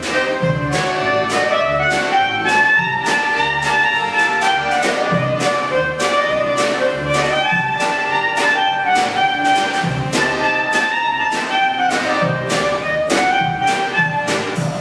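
Klezmer band playing live: clarinet and soprano saxophone carry a winding melody over a drum kit keeping a steady beat and a plucked double bass.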